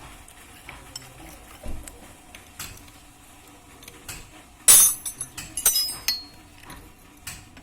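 Light metallic clicks and clinks, with a louder clatter of ringing metal-on-metal clinks about five seconds in.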